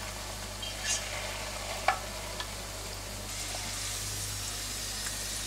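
Batter-coated frankfurters (corn dogs) deep-frying in a pot of oil, a steady sizzle, with two light taps of tongs about one and two seconds in as they are turned.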